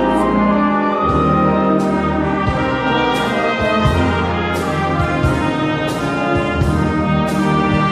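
Wind orchestra of brass and saxophones playing a held, full-toned passage, with short sharp strikes roughly once a second.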